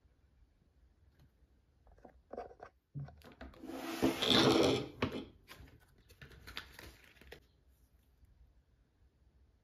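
Hands pushing metal pliers, scissors and plastic-packaged hooks and line across a plastic cutting mat: a few light knocks, then rustling and scraping that is loudest about four to five seconds in, and lighter handling sounds after.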